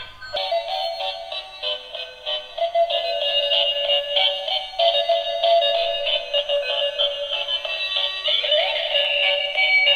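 Battery-powered transparent gear toy car's built-in speaker playing a tinny electronic tune with a synthetic voice, starting a moment in, just after the car is switched on. A rising swoop sounds near the end.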